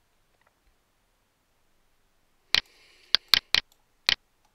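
Computer mouse clicking: five sharp, separate clicks in the last couple of seconds, after a near-silent start.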